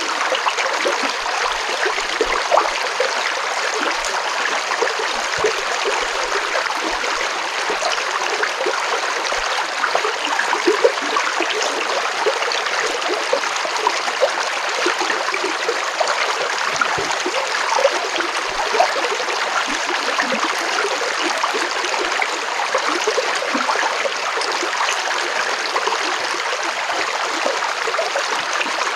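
Water flowing steadily: a continuous rush with many small splashes.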